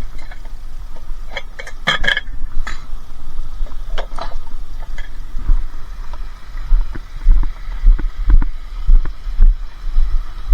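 Scrap metal, pots and pans among it, being handled and loaded: a few sharp metal clanks and knocks in the first few seconds, then low thumps, over a steady low rumble of wind on the microphone.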